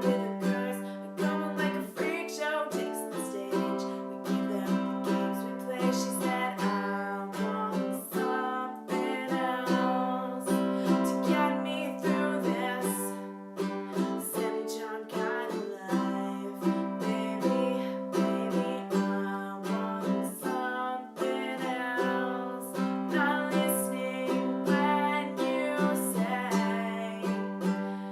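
A plucked string instrument playing a tune, with quick picked notes over a steady low drone.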